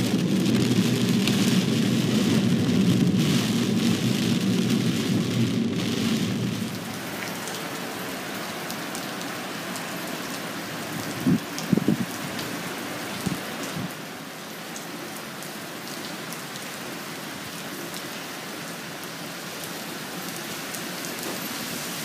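Heavy typhoon rain. For the first six or so seconds it beats on a moving car over a low rumble of tyres on the wet road, then it settles into a quieter, steady hiss with a few short knocks around the middle.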